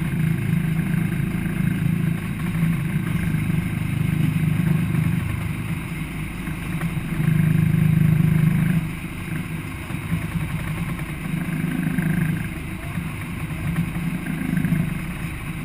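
A boat's engine running with a steady low rumble that swells and eases, loudest for a second or so about halfway through.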